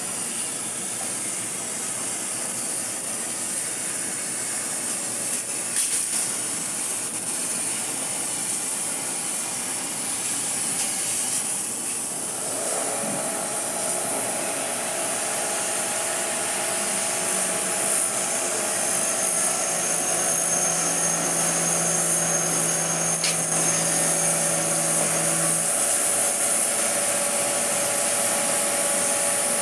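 2 kW CNC laser cutter cutting 3 mm mild steel plate: a steady hiss of the assist-gas jet at the cutting head over machine hum. Several steady tones join in about 12 seconds in, and a low one drops out a few seconds before the end.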